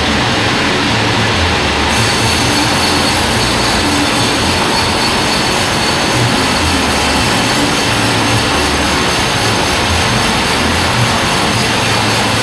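Band sawmill running and cutting a log lengthwise into boards: a loud, steady machine noise with a throbbing low rumble, and a hiss that grows brighter about two seconds in.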